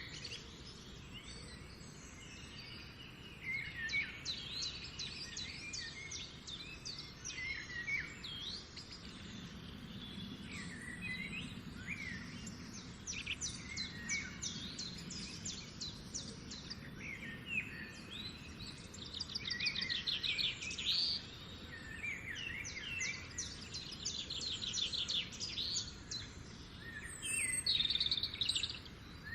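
Several birds singing and calling at once, a busy mix of short chirps, quick whistled sweeps and rapid trills, over a steady outdoor background hiss.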